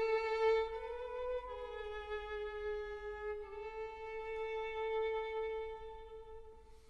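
Recorded solo violin music: a slow melody of long held notes that steps down in pitch twice, the last note fading near the end.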